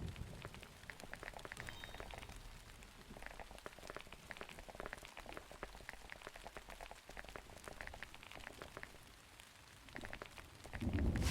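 Plastic keycaps being cleaned: many small, irregular clicks and crackles, with a louder low thump near the end.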